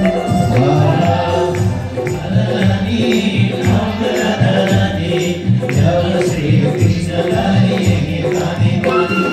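Devotional Hindu bhajan music with a steady rhythmic beat, jingling percussion and voices singing.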